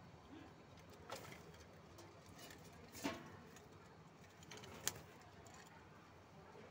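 Faint cooing of Madrasi pigeons in a wire loft, with three short sharp clicks about a second, three seconds and five seconds in.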